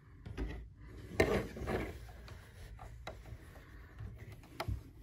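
Hands handling a plastic LEGO model car: a few light knocks and clicks of bricks, with some rubbing. The loudest knock comes about a second in.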